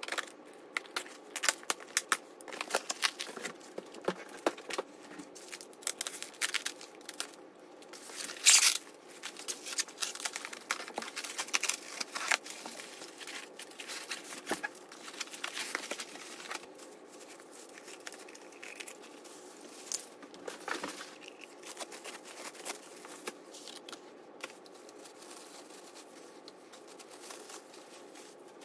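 Unboxing noises: packing tape on a cardboard box cut with a knife and torn open, then plastic wrap and packing material crinkling and rustling as lamp parts are lifted out, with scattered clicks and knocks. The loudest sound is a short burst of tearing noise about eight seconds in. The handling grows quieter and sparser in the second half.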